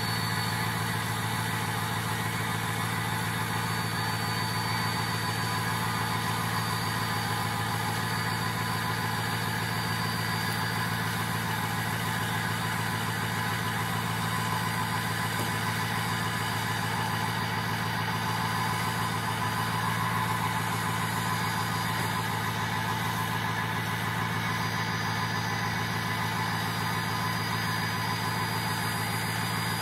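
Ford 6.0 Powerstroke V8 turbo-diesel idling steadily at the tailpipe during its cold-start warm-up, after sitting unplugged in freezing weather.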